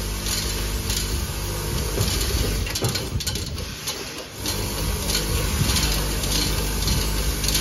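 Automatic screw counting and bagging machine running, a steady mechanical hum with repeated clicks and clatters as it counts screws into plastic bags and heat-seals them. The hum drops away briefly in the middle.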